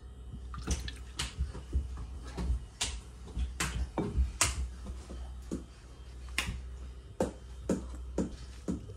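Background music with a beat of sharp finger snaps, about one or two a second, over a low bass.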